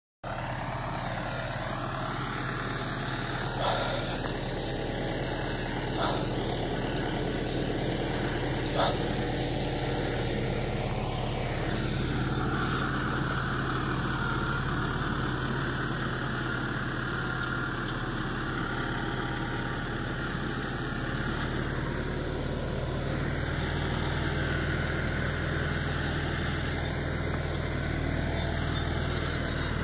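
Tractor engine running steadily as it pulls a trailed boom crop sprayer that is spraying, with an even hiss over the engine sound. Three light knocks in the first nine seconds.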